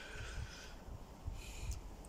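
Quiet background noise with a faint low rumble and a light hiss.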